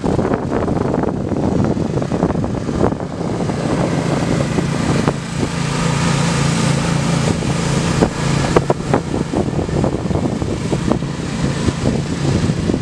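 Riding lawn mower engines running hard as the racing mowers pass over a dirt track. A steady engine hum comes up strongly about four seconds in and holds until near the end.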